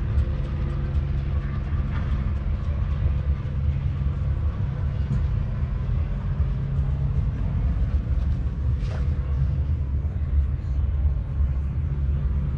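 Engine idling steadily, a low, even rumble with no change in speed.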